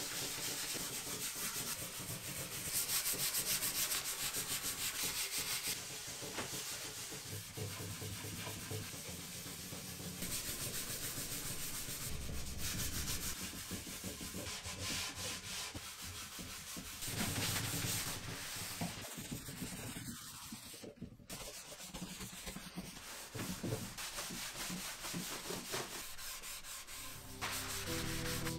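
Cloth rubbed by hand over the wooden surface of a cabinet, working in a hardwax oil finish: a continuous rubbing hiss that swells and fades with the passes.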